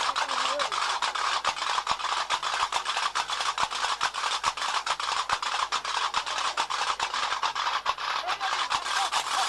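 Metal hand castanets (shqashiq) clattering in a fast, even beat, the percussion of diwan (stambeli) ritual music.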